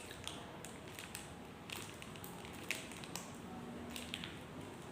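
Faint, scattered soft clicks and smacks of someone eating and chewing, a few each second.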